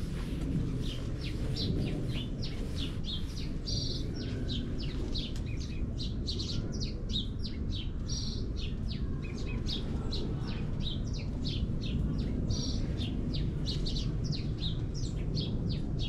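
A flock of small birds chirping busily, many short high chirps overlapping several times a second, over a steady low background rumble.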